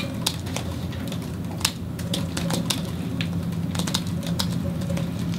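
Irregular sharp clicks and taps, a few a second, over a steady low room hum.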